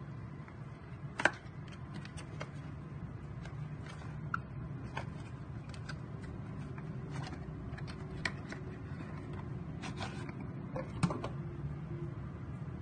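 Scattered light clicks and taps of hands handling a tube of metal polish against a stainless steel stove top, over a steady low hum, with a sharper knock about a second in and another about ten seconds later.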